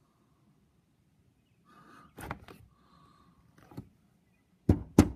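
A few soft knocks about two seconds in and again near four seconds, then two sharp, loud thuds near the end.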